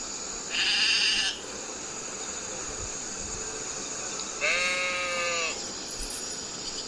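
Sheep bleating twice over a steady hiss: a short call about half a second in, then a longer one about four and a half seconds in that drops in pitch as it ends.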